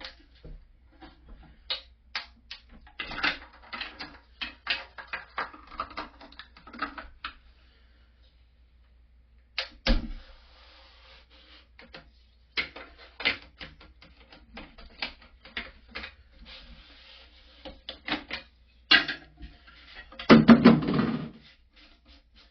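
Hands handling toilet tank parts: a string of irregular plastic clicks, taps and knocks, with one sharper knock about ten seconds in and a louder scraping rustle near the end.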